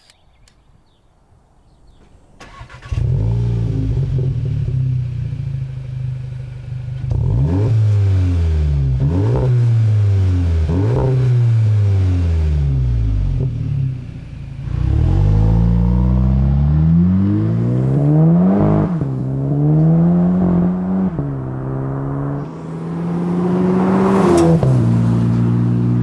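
Volkswagen Mk7 GTI's turbocharged 2.0-litre four-cylinder running through a COBB titanium cat-back exhaust. It starts up about three seconds in and idles, then is revved over and over, the pitch climbing quickly and falling back each time before settling to a steady idle near the end.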